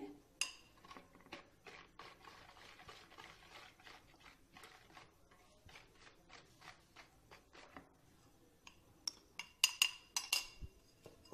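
Wire whisk stirring flour into cake batter in a mixing bowl: soft ticks and scrapes, with a few sharper clinks that ring briefly about nine to ten seconds in.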